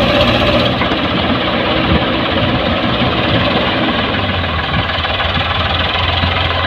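Farmtrac 60 tractor's diesel engine running steadily under load as it hauls a fully loaded trolley up a sandy slope. The engine note drops lower about four seconds in.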